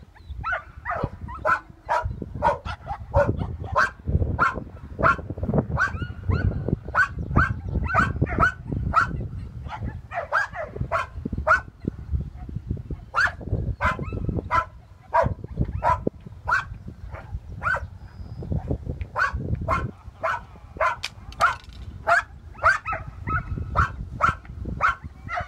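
Search-and-rescue dog barking repeatedly and steadily, about two barks a second, in the sustained way a rubble-search dog barks to alert at a buried find.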